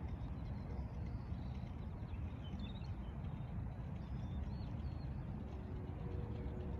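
Steady low outdoor rumble of background noise, with a few faint bird chirps about halfway through.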